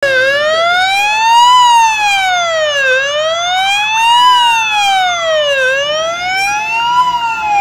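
Police car siren wailing, its pitch rising and falling slowly, about one full sweep every three seconds.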